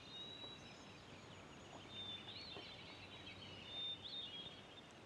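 Faint birds chirping, many short calls, over a low steady hiss of outdoor ambience.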